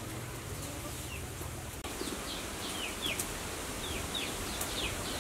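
Small birds chirping outdoors in short, quick falling notes, several a second, from about two seconds in. Before that a low steady hum cuts off suddenly.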